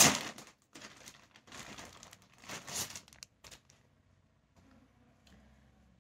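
Clear plastic polybag crinkling and rustling as it is opened and a folded t-shirt is pulled out, in several bursts that stop about three and a half seconds in.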